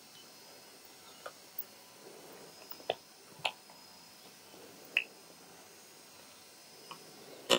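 Short, sharp snapping and tearing sounds, about seven at uneven intervals and loudest near the end, as a spotted hyena bites and tears into a live wildebeest's flesh.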